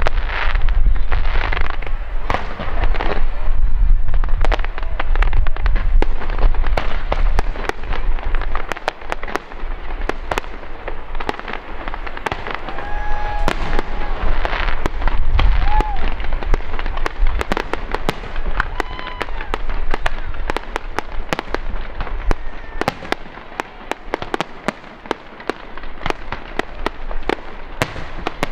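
Aerial fireworks shells bursting in a dense, rapid string of bangs and crackles, with heavy low booms through the first several seconds and again around the middle.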